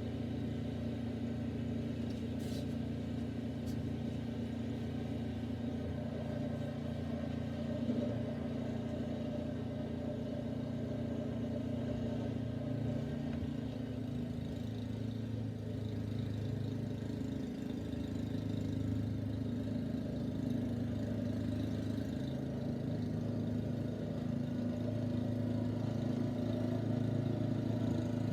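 An engine running steadily at an even pitch, its tone shifting slightly about halfway through.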